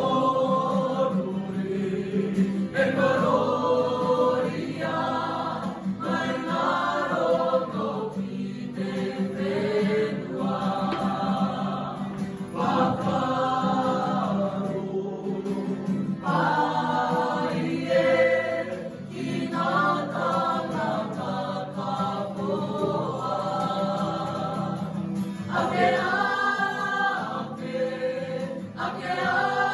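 A mixed group of young voices, girls and boys, singing together as a choir, in phrases of a few seconds with short breaks between them.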